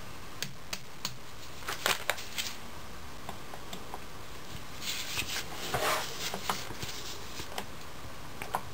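Needle-nose pliers and a small hand tool clicking and scraping against the spring-loaded reverse servo retaining clip in a 4L80E transmission case: scattered light metal taps, with a short stretch of scraping about five to six seconds in.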